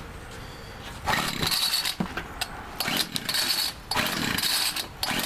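Homelite two-stroke gas string trimmer being pull-started: three pulls on the recoil starter cord, each a short burst of about a second, with the engine cranking but not yet running.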